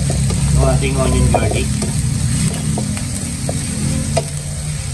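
Minced onion and garlic sizzling in oil in a nonstick frying pan, sautéing toward translucent while a spatula stirs and scrapes them across the pan, with a sharp tap about four seconds in.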